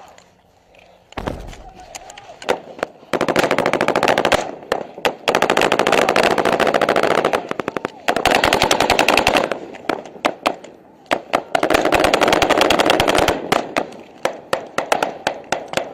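Automatic gunfire at close range: long, rapid bursts of a rifle or machine gun, fired in several strings with short pauses, with scattered single shots before and after. A low thump sounds a little over a second in.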